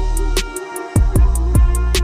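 Background music with a steady electronic beat: kick drum and fast hi-hat ticks under sustained synth tones.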